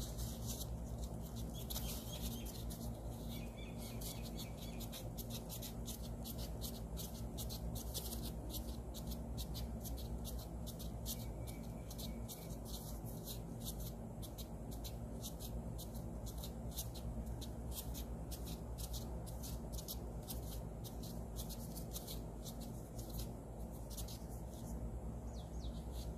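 A steady low hum, with a rapid, irregular run of faint high clicks and crackles over it.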